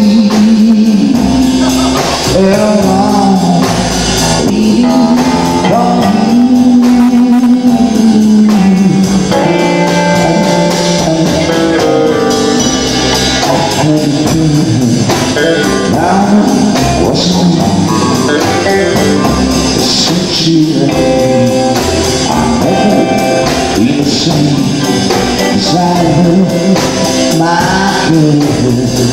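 Live rock'n'roll band playing: electric guitar and drum kit, with a man singing into the microphone.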